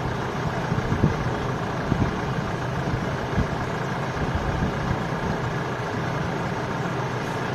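Vehicle engines idling steadily, with a few short low thumps.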